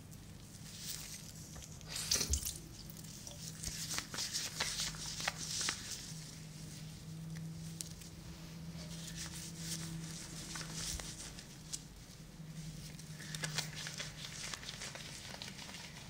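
Wet squishing and crinkling rubbing right against a binaural microphone, as shampoo lather is worked into hair, with scattered small clicks. It swells and fades over several seconds, with a steady low hum underneath.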